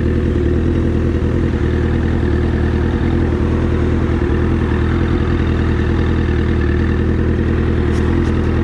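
Motorcycle engine running steadily at an even, low engine speed while riding.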